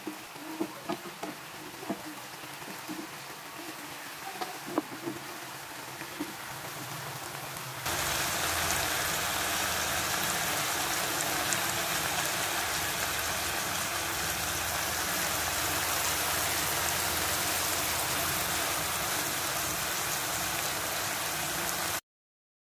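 Cabbage and fried tofu sizzling in a wok, with a wooden spatula clicking and scraping against the pan for the first several seconds. About eight seconds in, the sizzle turns louder and steadier, then cuts off suddenly near the end.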